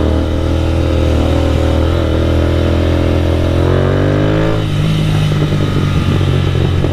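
Royal Enfield 650 parallel-twin motorcycle engine pulling under throttle while riding, its note rising slowly. About two-thirds of the way through the throttle eases and the note drops, with road and wind noise behind it.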